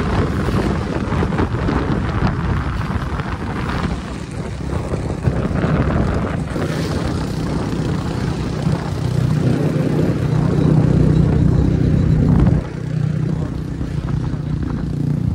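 Motorcycle riding on the road, heard from the rider's seat: a constant rush of wind noise over the microphone with the engine running underneath. The engine hum grows louder and steadier from about nine seconds in, then drops off suddenly near the end.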